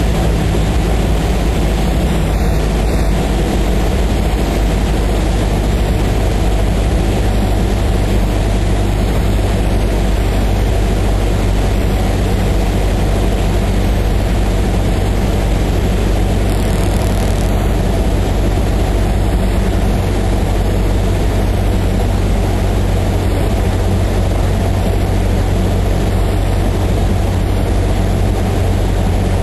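Cessna 152's four-cylinder Lycoming O-235 engine and propeller droning steadily, heard from inside the cabin.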